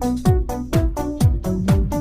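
Electronic dance-style smartphone ringtone: short synth notes in a stepping melody over a steady kick-drum beat.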